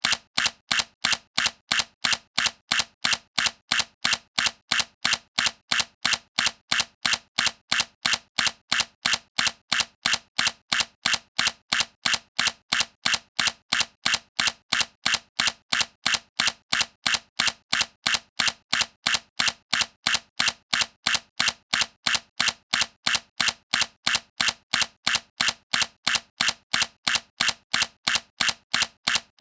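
Sony A7C camera shutter firing over and over in an even rhythm, about three sharp clicks a second.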